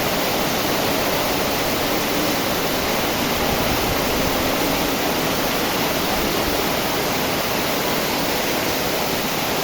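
Heavy rain pouring down with rushing floodwater, a steady, even rushing noise that neither rises nor falls.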